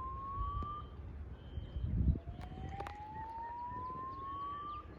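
Alarm tone from a fire alarm speaker fed by an MP3 board, heard from far off: a whoop that rises slowly in pitch for about three seconds, breaks off about a second in, then starts over from low and climbs again.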